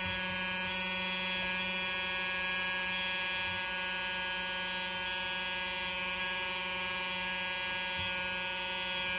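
Small electric motor driving a 3D-printed gear pump, running at a constant speed with a steady whine.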